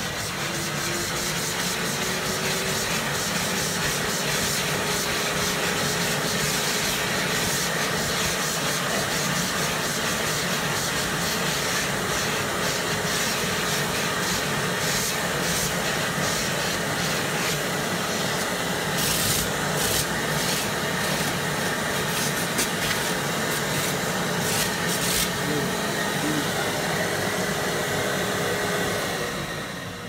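Eureka Forbes WD-X2 wet-and-dry vacuum cleaner running with a steady whine, its brush nozzle scrubbing and clicking over rough mosaic stone. The motor winds down near the end.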